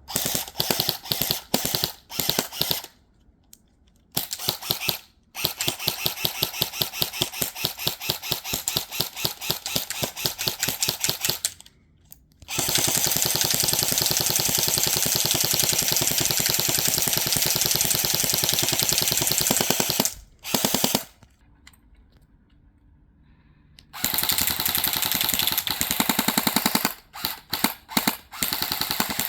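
Battery-powered electric airsoft rifle (AEG) firing on full auto in rapid bursts of varying length, including one long unbroken run of about seven seconds, with short bursts and a few single shots near the end.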